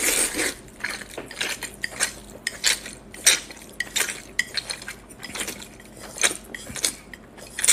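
Close-miked slurping of spicy Buldak fire noodles: a quick, irregular run of wet sucks and smacks as mouthfuls are drawn in and chewed.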